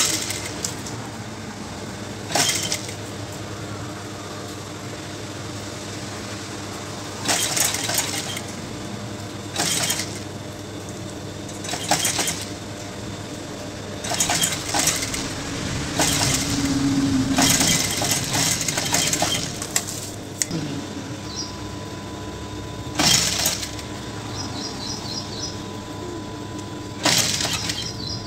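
Industrial lockstitch sewing machine stitching in about nine short bursts, with a longer run of about three seconds near the middle, and a steady hum between the bursts.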